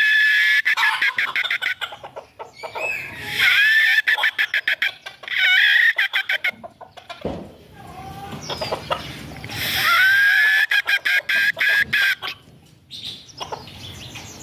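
Rooster crowing several times, long calls near the start, in the middle and again later, with rapid sharp clicks between the calls.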